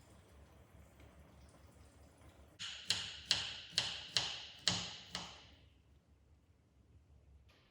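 About seven sharp, ringing clinks in quick succession, like a hard kitchen utensil striking a dish or pan, starting a little over two seconds in and stopping after about two and a half seconds.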